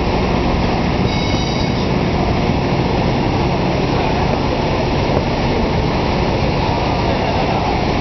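Steam sternwheeler Natchez's paddle wheel churning river water, a steady loud wash with a low rumble. A brief faint high squeal comes about a second in.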